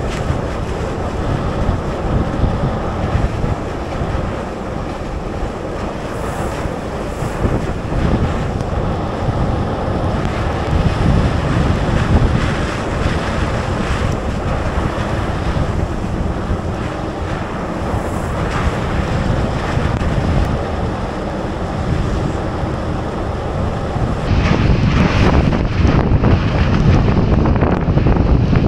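Steady wind buffeting an action camera's microphone on a moving car, mixed with the hiss of tyres on a wet road; the hiss gets louder near the end.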